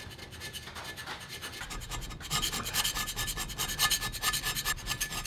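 Hand scraper pushed in quick short strokes across a cast-iron vise body casting, scraping down high spots so the base stops rocking; the strokes grow louder about two seconds in.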